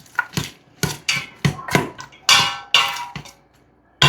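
A metal utensil clanking and scraping against the Instant Pot's inner pot while stirring sautéing vegetables: a quick, irregular run of knocks, two of them near the middle ringing on briefly.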